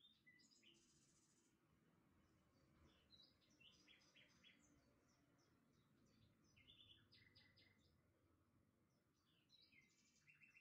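Faint birds chirping in short runs of rapid high notes every few seconds, over a low steady background hum.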